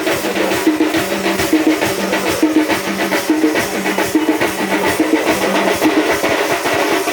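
Music with a busy drum and percussion beat over held low notes.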